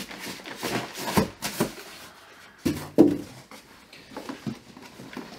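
Cardboard box and packed accessories being handled during unpacking: irregular rustling, scraping and light knocks, the loudest knocks about one and three seconds in.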